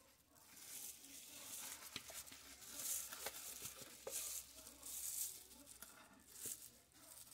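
Faint, intermittent scraping of a spatula against a plastic mixing bowl as thick cheesecake batter is scraped and poured out, with a few light clicks.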